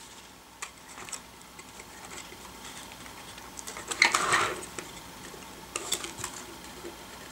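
Hand handling noise from a thin plastic membrane overlay on a Siemens KTP400 HMI panel being bent and fitted: a few light clicks and taps, and a brief louder plastic rustle about four seconds in.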